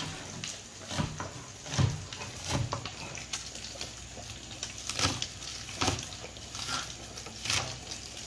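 Chef's knife slicing scallions on a plastic cutting board: slow, uneven knocks of the blade striking the board, roughly one a second, with a pause in the middle.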